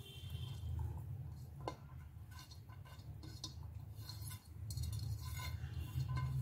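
Light clinks and taps of a stainless-steel plate against the rim of a steel mixing bowl as chopped vegetables are scraped off it by hand, over a steady low hum.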